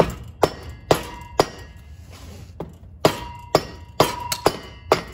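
Rubber mallet knocking on the driveshaft-to-transmission flange of an Audi B5 S4, nine sharp knocks in two runs, four then five after a short pause, several leaving a brief metallic ring. The knocking is meant to shock loose a driveshaft flange seized onto the transmission output.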